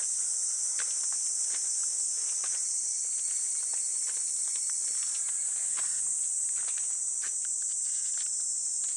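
A steady, high-pitched chorus of cicadas. Beneath it, faint, evenly paced footsteps on a stone path, a little over one step a second.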